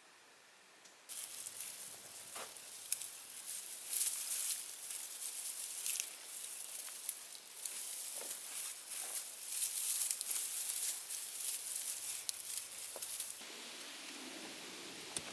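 Dry, crackly rustling of a crinkly material being handled, full of small ticks. It starts abruptly about a second in and stops abruptly near the end.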